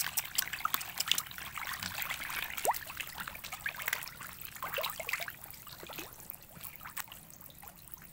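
Sangkuriang catfish thrashing and splashing at the pond surface in a feeding frenzy: a dense patter of splashes and droplets that thins out and grows quieter over the last few seconds as the fish settle.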